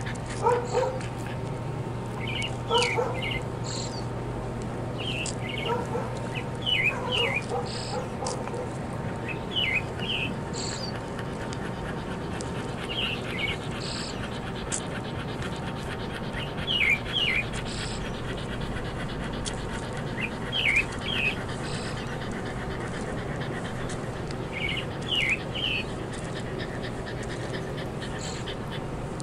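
A dog whimpering and whining in short high calls that come in pairs and triplets every few seconds, over steady outdoor background noise. In the first several seconds the calls are fuller and lower-pitched; later only thin high chirps remain, which may be birds.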